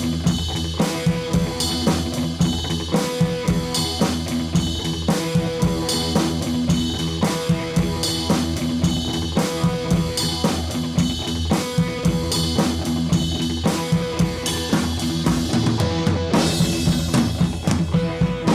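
Background music with a steady drum beat and held instrument notes.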